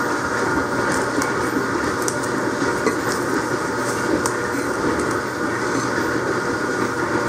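Steady mechanical running noise of a machine with a low hum, and a few faint clicks over it.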